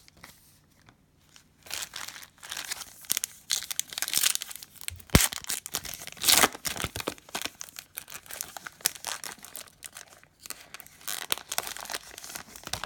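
Plastic wrapper of a Panini Prizm basketball trading-card pack crinkling and tearing open, with cards being handled: irregular rustles and clicks, with a sharp snap about five seconds in.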